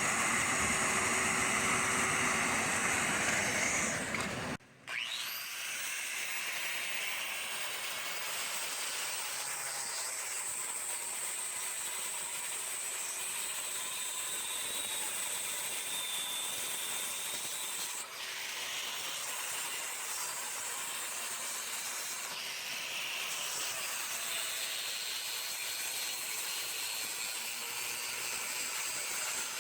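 A dust-extraction vacuum running steadily, cut off suddenly about four and a half seconds in. After the cut, a quieter steady hiss, mostly high in pitch, runs on.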